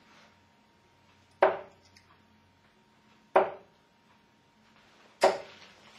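Three steel-tip darts thudding one after another into a Winmau sisal bristle dartboard, each a single sharp thud, about two seconds apart.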